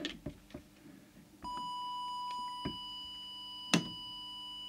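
A few knocks and clicks of equipment being handled. Then, about a second and a half in, a steady single-pitch test tone from an audio oscillator comes on and holds, with one sharp click near the end. The tone is being fed in to set the CB transmitter's FM deviation.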